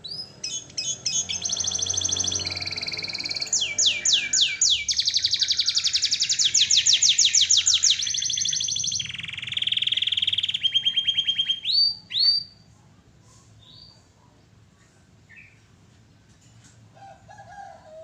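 Domestic canary singing a long, loud song of fast repeated trills and rolls, each run of identical notes giving way to a new one every second or two, stopping about twelve seconds in. A few faint chirps follow.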